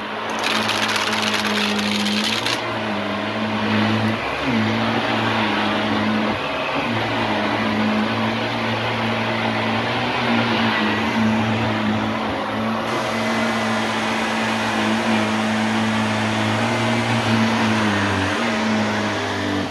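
Shark Navigator Lift-Away Deluxe upright vacuum running steadily, its motor humming under a strong rush of air. The hum dips briefly about four seconds in and drops in pitch shortly before the end.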